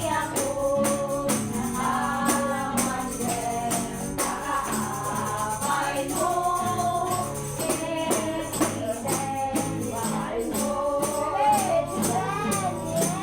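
A congregation singing a worship song with accompaniment: voices over a steady bass and keyboard backing, with a regular shaken or struck percussion beat.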